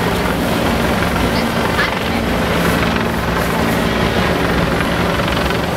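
Steady loud mechanical rumble with a low, even hum, like engine noise, holding at one level throughout.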